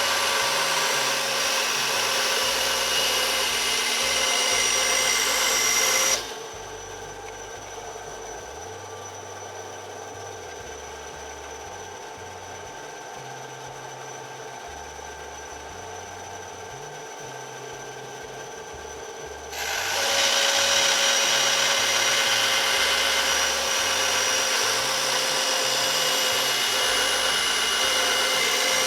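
Ryobi 9-inch band saw ripping small pieces of wood, a steady whine over the hiss of the cut. About six seconds in the cutting stops and the saw runs on more quietly, and about twenty seconds in it is cutting again.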